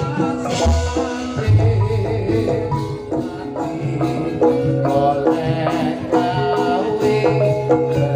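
Live East Javanese jaranan music: a gamelan-style ensemble of drums and metal mallet percussion playing a dense, driving rhythm under held melodic notes.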